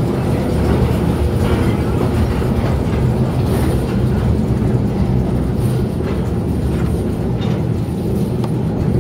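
1948 electric mine locomotive rolling along the rails: a steady, loud rumble of wheels and running gear, with occasional light clicks and knocks.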